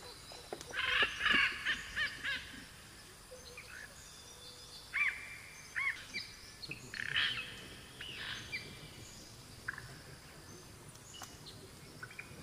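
Birds chirping and calling: clusters of short, high chirps about a second in and again around five to seven seconds in, with a few scattered chirps later over a faint steady background hiss.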